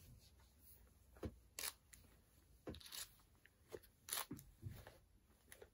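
Faint, scattered rustles and short clicks from scissors and the doll's synthetic hair being handled during a trim, about half a dozen separate sounds.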